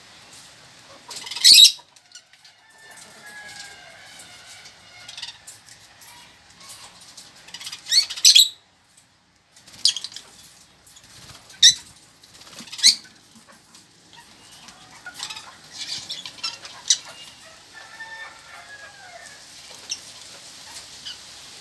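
Pet lovebirds and budgerigars chattering, with several short, loud, shrill bursts standing out above the soft warbling.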